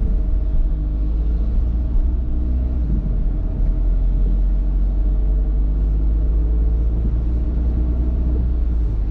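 Car driving on a wet road, heard from inside the cabin: a steady low rumble of engine and tyres, the engine note rising and falling a little with speed.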